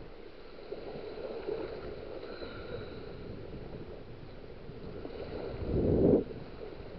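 Shallow surf washing and lapping over the sand around the angler's feet, with wind on the microphone. A louder rush of water swells up near the end and drops away suddenly.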